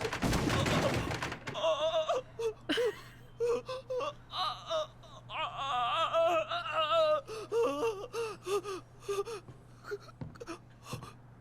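Wordless voice sounds: a loud breathy gasp, then a string of short, wavering moans and whimpers.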